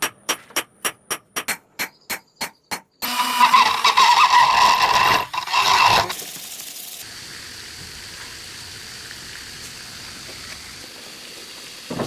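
About ten sharp hammer blows on metal, evenly spaced at about three a second, typical of forging at the anvil. They are followed by about three seconds of loud continuous noise.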